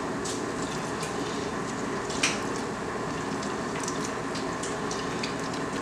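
Hands rubbing cut limes over raw pork pieces in a glass bowl to clean the meat: soft wet squishing with a few light clicks, one sharper about two seconds in, over a steady hiss.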